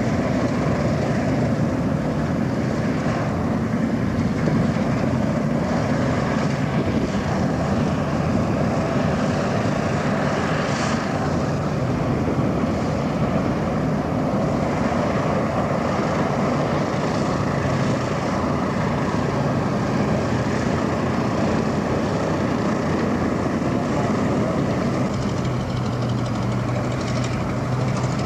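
Fairey Swordfish biplane's Bristol Pegasus nine-cylinder radial engine running steadily as the aircraft taxis, propeller turning.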